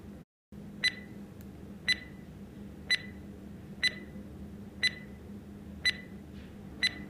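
Quiz countdown-timer sound effect: a short, high tick once a second, seven in all, over a faint steady hum.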